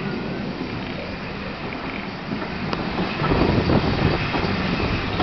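Steam-hauled heritage train running slowly, heard from a coach window: a steady clatter of coach wheels on the rails with a short click near the middle, growing louder about three seconds in.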